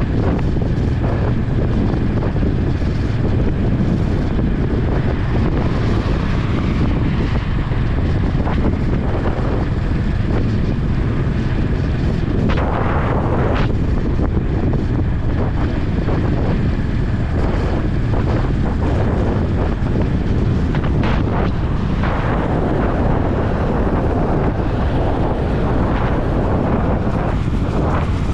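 Honda H'ness CB350's air-cooled single-cylinder engine running steadily at highway cruising speed, heard under heavy wind rush on the camera microphone. The rush swells briefly about halfway through and again about two-thirds of the way in.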